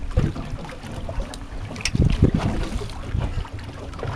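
Wind buffeting the microphone on a boat at sea, in uneven low gusts that are loudest about two seconds in, with a few faint clicks.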